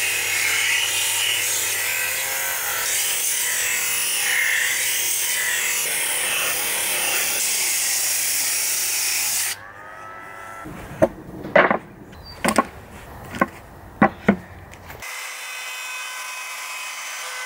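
A handheld electric power tool running steadily with a high hiss and a low hum, stopping abruptly about nine and a half seconds in. A run of about seven sharp knocks follows over some four seconds, then a quieter steady hum.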